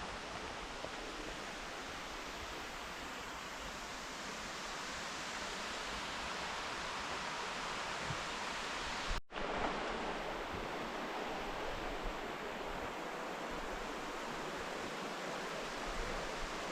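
Marymere Falls, a waterfall, giving off a steady rushing hiss of falling water. The sound cuts out for a moment about nine seconds in, then carries on the same.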